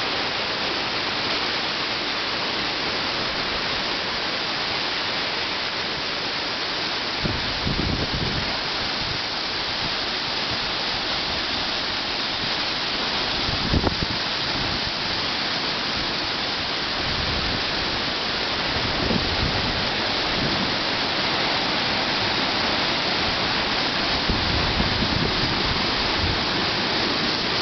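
Königsbach waterfall: a steady, loud rush of falling water, with a few short low rumbles breaking in.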